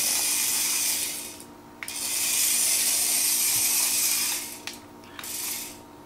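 Tiny Adventure Force Nano Racer RC car's electric motor and plastic gears whirring at high pitch as it drives, in two long runs with a short stop about a second and a half in, then dying away near the end.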